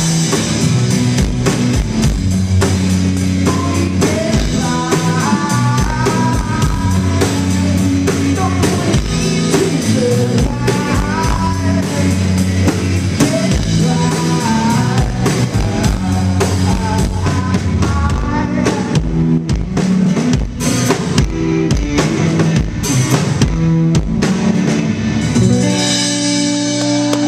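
Blues-rock duo playing live: guitar and drum kit, with singing.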